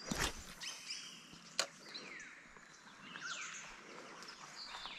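Birds calling outdoors: several clear whistles that slide down in pitch, with a single sharp click about a second and a half in.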